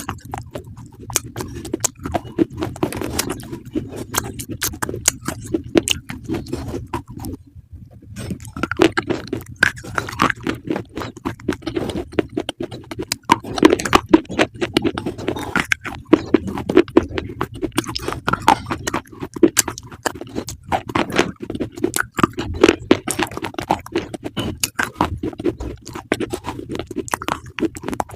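Crunchy food being chewed, a dense, irregular run of crunches, with a brief pause about seven seconds in.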